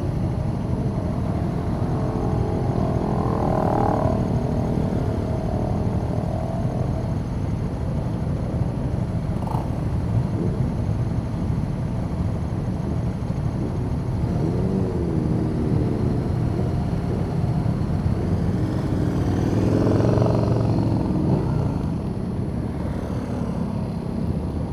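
Motorcycle engines running over a steady low rumble, with bikes going by whose engine notes rise and fall a few seconds in, midway and again near the end.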